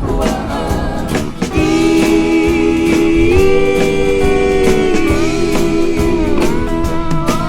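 Music: an instrumental stretch of a song between sung verses, with a steady beat and a long held note that steps up in pitch partway through.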